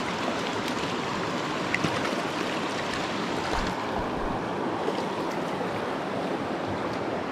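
Steady rushing of a mountain trout stream's flowing water, with a couple of faint clicks about two seconds in.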